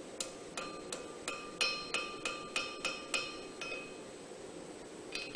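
Hand hammer striking hot steel on an anvil while forging a knife blank: about eleven ringing blows at roughly three a second, then a pause and one more blow near the end.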